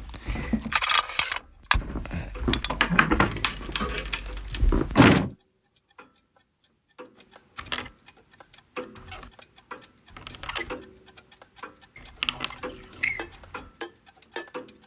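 Loud, dense noise that cuts off suddenly about five seconds in, followed by quieter clockwork ticking and clicking, several irregular clicks a second.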